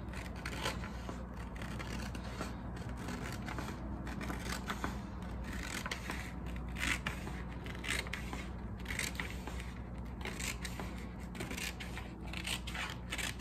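Scissors cutting through self-adhesive dry-erase contact paper: a run of irregular short snips.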